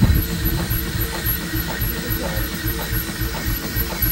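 Antique coal- and wood-fired steam traction engine running with its flywheel turning, giving an even mechanical beat about four times a second.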